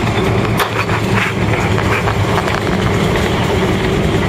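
Cabin noise of a Boeing 767-300ER rolling along the runway just after landing: a loud, steady rumble of wheels and engines, with a run of rattles and knocks in the first two seconds or so.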